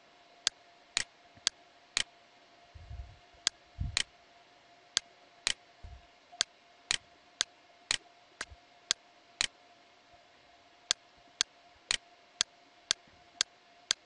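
Computer mouse clicking, sharp single clicks about two a second with two short pauses, as package boxes are picked and ticked; a couple of soft low thumps about three and four seconds in.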